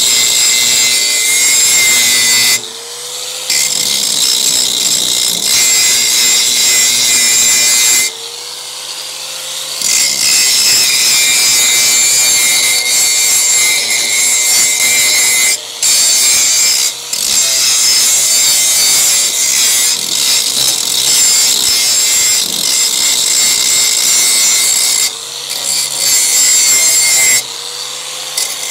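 Electric angle grinder working the steel of a motorcycle sidecar frame: a steady harsh grinding hiss, broken by a few short pauses where the disc comes off the metal and the motor's hum rises in pitch.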